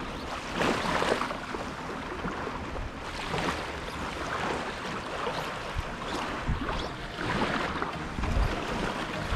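Shallow seawater lapping and sloshing at the shoreline in irregular swells, with wind rumbling on the microphone.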